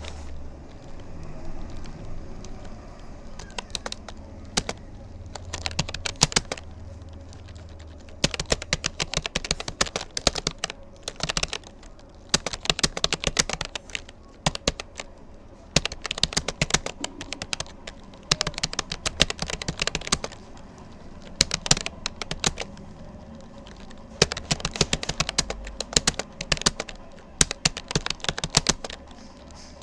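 Typing on a Rapoo computer keyboard: rapid runs of key clicks in bursts of a second or two, broken by short pauses, sparser for the first few seconds.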